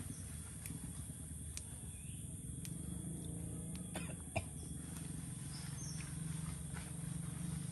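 Long beans being snapped by hand into short pieces: sharp snaps about once a second, the loudest about four and a half seconds in. Under them is a steady low hum, with a few short high bird chirps.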